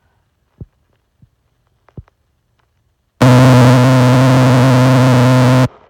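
A loud, steady electronic buzzing tone that starts suddenly about three seconds in and cuts off just as suddenly about two and a half seconds later; before it, only a few faint clicks.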